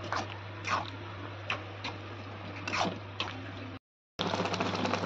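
Thick gajar halwa (grated carrots in milk) bubbling in a kadhai, with soft wet plops of bursting bubbles about once a second over a steady low hum. Near four seconds the sound drops out briefly and returns as a denser crackle.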